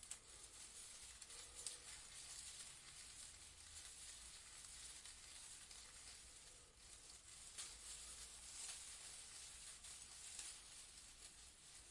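Leaves rustling faintly in a breeze: a soft, even high hiss with light crackles.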